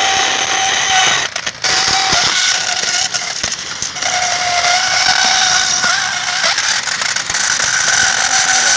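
Homemade plastic-cutting machine, a used meat-cutting saw blade belt-driven by a small washing-machine motor, cutting into a plastic computer keyboard with a loud, high-pitched squeal. The sound drops out briefly about a second and a half in and again around four seconds, as the underpowered motor bogs down in the plastic.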